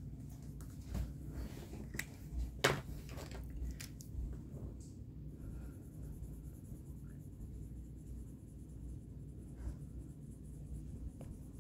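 Felt-tip marker scratching on cardstock paper as small shapes are colored in, quiet, with a few sharper clicks and taps in the first four seconds.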